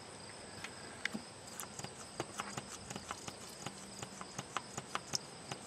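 Irregular sharp clicks and ticks, a few a second and more frequent after the first couple of seconds, as the hand fuel priming pump is worked to bleed air from the rear fuel filter of a Unimog 419's diesel fuel system.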